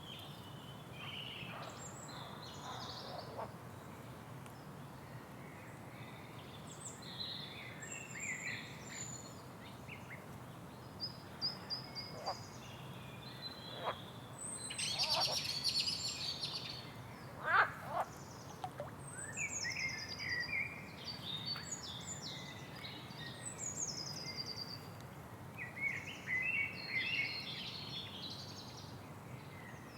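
Forest ambience full of birdsong: many different birds chirping, trilling and giving short falling whistles, overlapping throughout, over a steady low background hum. One sharper, louder call stands out a little past halfway.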